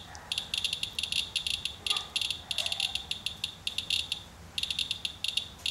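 Inspector handheld Geiger counter clicking rapidly and irregularly, sharp high chirps in dense clusters with short pauses about two seconds in and again near four seconds. The fast count rate comes from a rainwater sample reading close to 30 times background radiation.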